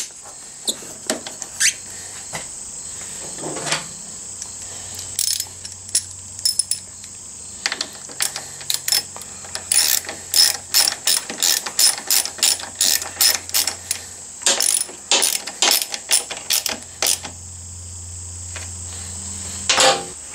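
Ratchet wrench clicking as it drives in a small 8 mm bolt, scattered clicks at first and then quick runs of several clicks a second through the middle.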